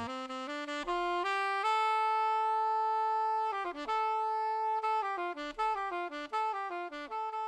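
Music: a solo melody on a single wind instrument. It climbs in short notes, holds one long note, then runs quickly down and back up.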